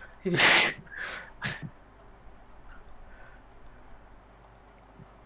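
A short, loud burst of noise on a computer microphone, followed by two shorter ones within about a second. After that come faint, scattered clicks of a computer mouse.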